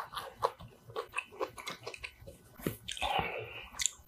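Close-up chewing of braised kimchi and rice: irregular small wet mouth clicks, with a louder stretch of about half a second about three seconds in.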